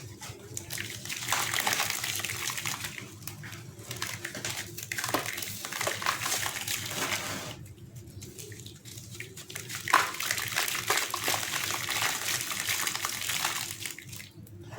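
Gritty sand-cement chunks crumbling in water: a fizzing, crackling hiss in long bursts, with short pauses between them and one sharper crack about ten seconds in.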